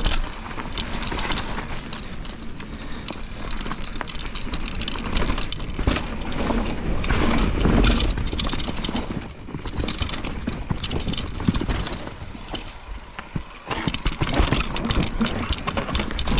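Mountain bike descending a steep, wet, root-covered trail: a constant rushing rumble of tyres on dirt, broken by frequent sharp knocks and rattles as the bike hits roots.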